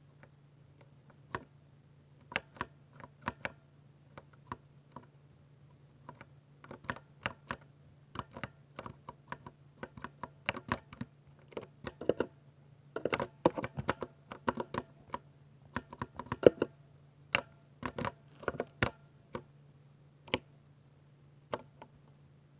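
Typing on a 60% mechanical keyboard with Ducky silver switches: irregular keystrokes, sparse at first, thickening into quick bursts in the middle, then thinning out again. A steady low hum runs underneath.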